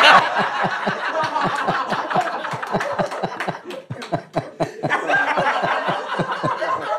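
Several men laughing together, loudest at the start, easing off about four seconds in, then rising again.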